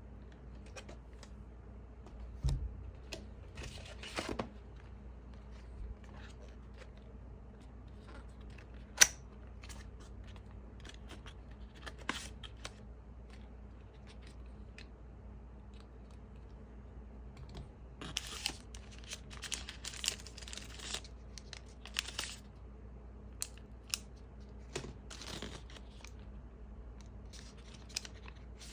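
Unboxing handling noises: clear plastic wrapping crinkling and rustling in bursts, mostly in the second half, between scattered clicks and taps of hard plastic parts being handled. A single sharp click about nine seconds in is the loudest sound, and there is a soft knock a couple of seconds in.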